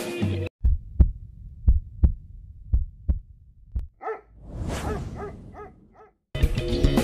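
Intro sound effects: a run of low, regular thumps, about three a second like a heartbeat, then a few short dog barks with a brief whoosh. Guitar music cuts off about half a second in and returns near the end.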